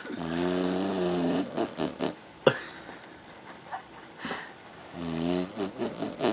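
A drunk man snoring in deep sleep: two long, pitched inhaled snores about four and a half seconds apart, each trailing off into a few short puffs. A sharp click comes about two and a half seconds in.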